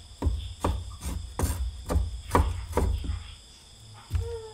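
A cleaver chopping long green beans on a round wooden chopping board: about seven even knocks, a little over two a second, that stop after about three seconds. Crickets chirr steadily throughout.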